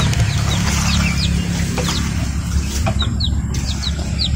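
Young chicks peeping: many short, high chirps, scattered and overlapping, over a steady low rumble.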